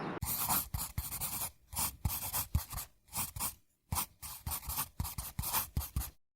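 Close, irregular scratching and rubbing noises in quick bursts with short gaps, which stop abruptly near the end.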